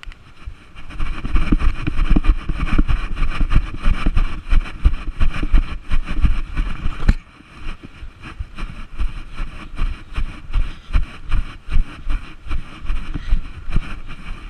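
Wind rumbling on a body-worn camera's microphone, with rhythmic low thuds of the wearer running; louder for about the first seven seconds, then easing off.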